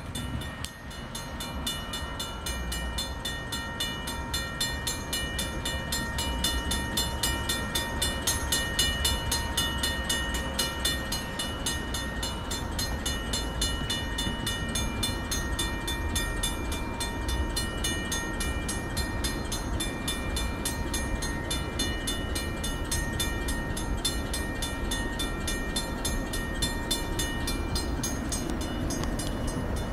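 Railroad grade-crossing bell ringing in rapid, even strokes with the gates down, over the low rumble of an approaching train.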